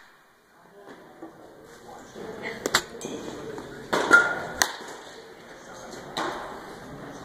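Baseball bat hitting balls during batting practice: several sharp cracks of contact, the loudest about halfway through with a brief ringing ping after it.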